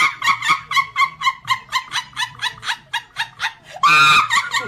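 High-pitched giggling: a rapid, even string of short 'hee' sounds, about four or five a second, broken by a louder, longer squeal of laughter about four seconds in.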